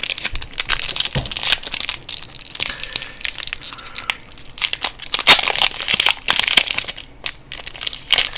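Foil Pokémon booster pack wrapper crinkling as it is handled, in a dense run of sharp crackles.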